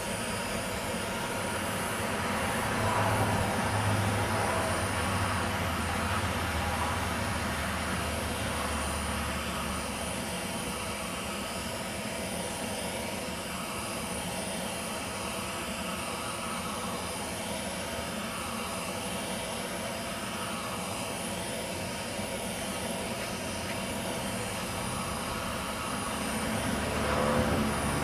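Handheld gas torch flame running steadily, a constant rushing hiss, as it heats an aluminium Vespa engine case to expand the main bearing bore.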